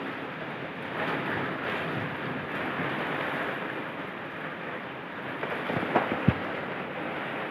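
Heavy rain pouring steadily, with wind buffeting the microphone. A few sharp taps come near the end.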